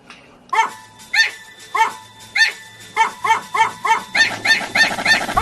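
Short dog barks repeated in a quickening rhythm like notes of a tune, over a steady held tone. They start about one every 0.6 seconds and get faster, to several a second near the end.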